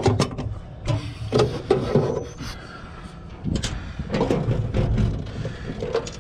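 Handling noise from a sheet-metal hog feeder: irregular rustling, scraping and small knocks as hands move the feeder's control box and wiring.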